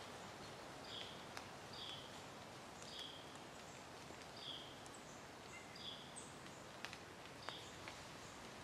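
Quiet autumn woodland ambience: short, faint, high calls repeating roughly once a second, with a few faint ticks and twig snaps.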